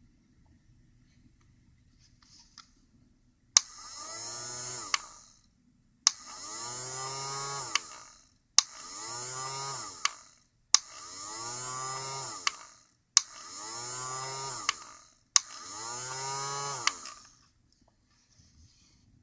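A small toy hair dryer for dolls is clicked on and off six times. Each time its little motor whirs for one to two seconds, then stops with another click.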